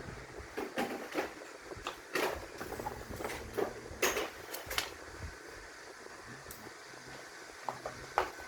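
A series of irregular short clicks and knocks, about eight in all, the strongest about four seconds in, over a faint steady hum: parts and tools being handled during a car door repair.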